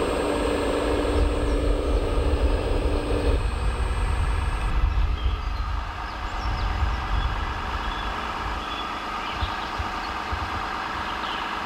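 RC Mercedes-Benz Actros tipper truck running, its sound module giving a steady diesel-engine note as the truck reverses slowly. The engine note shifts about three seconds in.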